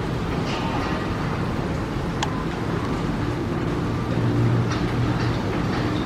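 Steady low rumble of a passing vehicle, louder about four seconds in, with a few faint sharp clicks.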